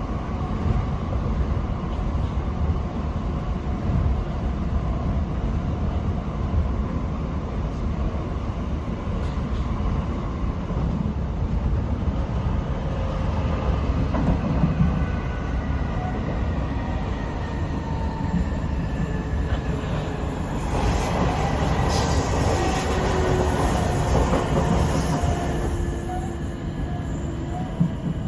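Class 455 electric multiple unit running on the rails with a steady low rumble. From about two-thirds of the way through, the noise grows harsher and brighter, with faint wheel squeal.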